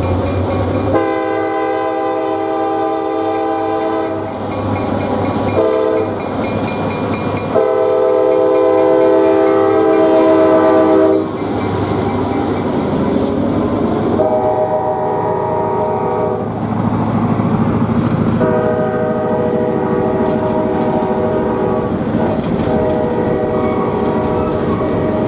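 GP38-3 diesel locomotive leading a freight train, sounding its air horn in a series of blasts: a long one, a short one, a longer one, then more long blasts. Underneath run the locomotive's engine and the rumble and clickety-clack of wheels on the rails.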